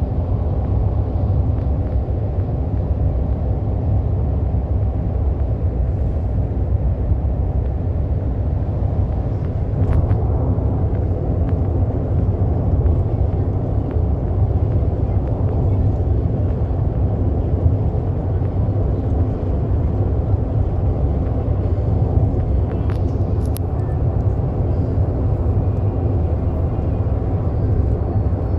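A car driving at highway speed, giving a steady low rumble of road and engine noise.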